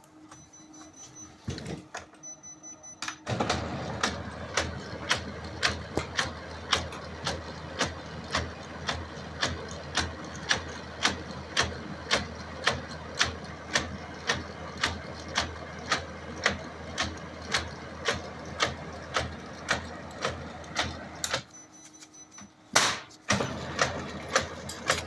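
Kyocera P3155 laser printer running with a regular knock about twice a second: the abnormal knocking fault. The mechanism starts a few seconds in, stops briefly near the end with one loud knock, then starts again with the same knocking.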